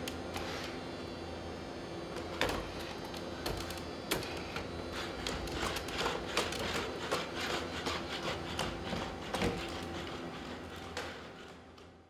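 SpotMini quadruped robot opening a door and walking through it: a quick irregular run of sharp taps and clicks from its feet and the door over a steady hum, fading out at the end.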